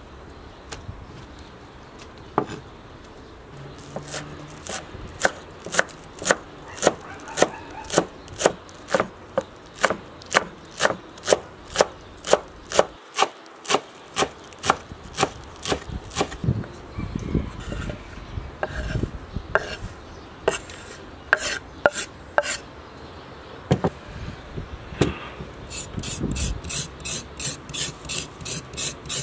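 Kitchen knife chopping fresh herbs on a wooden cutting board, the blade knocking on the board in a steady rhythm of about two chops a second, with a pause and a few more chops later. Near the end comes a faster run of lighter, higher taps.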